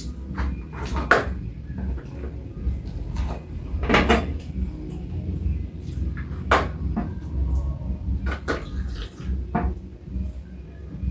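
Scattered knocks and clatter of plates, about five separate sharp knocks, over a steady low rumble.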